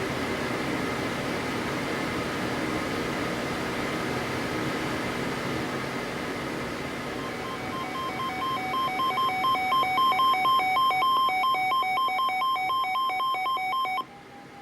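Weather alert radio hissing with static, then from about halfway an electronic alarm warbling rapidly back and forth between two tones, getting louder, until it cuts off abruptly near the end. The warble is a radio's alert alarm going off for an incoming warning.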